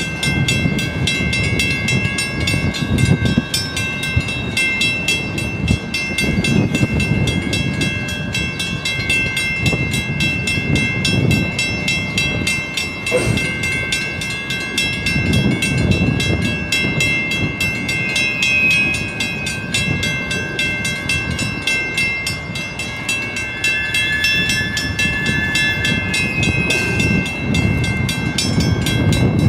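Freight train of covered hopper cars rolling steadily through a level crossing, with wheels clacking and rumbling in uneven pulses over the rail joints. Steady high ringing from the crossing bell runs alongside.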